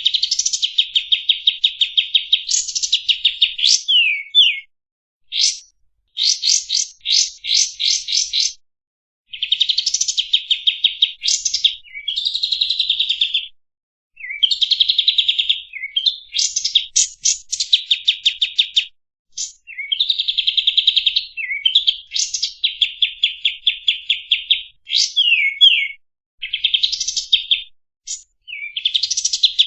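Kapas tembak singing a long, varied song: phrases of fast, rapidly repeated chirping notes mixed with quick sweeping whistles, one after another with short pauses between them.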